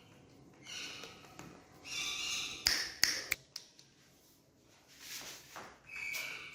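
Talking parrot making four short high-pitched calls, each about half a second long, with a few sharp clicks around the middle.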